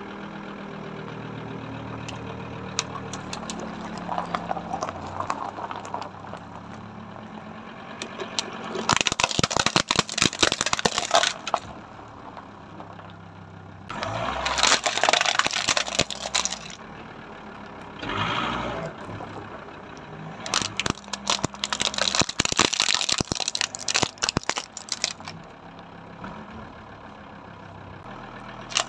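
A car engine idling and its tyre rolling slowly on gravel, with several loud bursts of cracking and crunching as the tyre crushes plastic objects such as a corded desk telephone and a computer keyboard.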